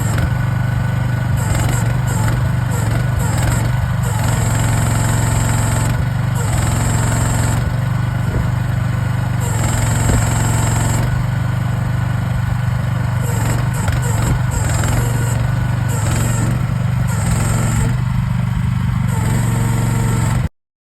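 Excavator engine running steadily at a constant speed, with a strong low hum. The sound stops abruptly near the end.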